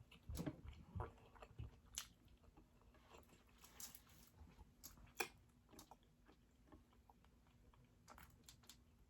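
Quiet, close-up chewing and biting of food: irregular soft mouth clicks and crunches, with a sharper click about five seconds in.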